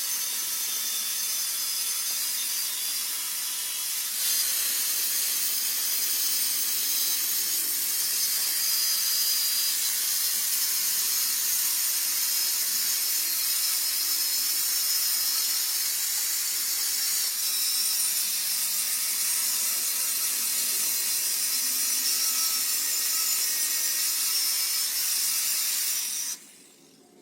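A steady, harsh hissing noise of metalwork on a truck's steel chassis frame, cutting off shortly before the end.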